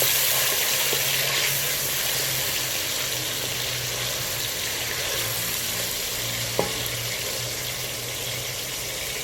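Onion paste sizzling as it fries in hot oil in a karahi, a steady hiss that slowly quietens. A single sharp knock sounds about two-thirds of the way through.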